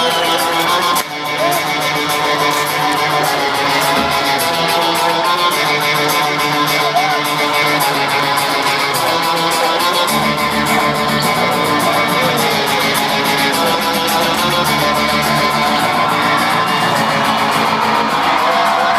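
Live rock band with electric guitar played loud through a large stage PA, heard from within the crowd. The low end fills in about halfway through.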